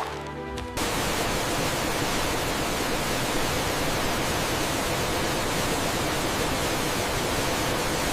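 Steady, even rushing of a waterfall that cuts in suddenly under a second in, after a brief stretch of soft music.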